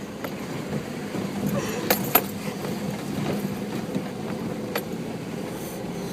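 A four-wheel-drive's engine running steadily as the vehicle crawls over rock steps, with sharp knocks and clinks of the vehicle and its gear rattling, two close together about two seconds in and another near the end.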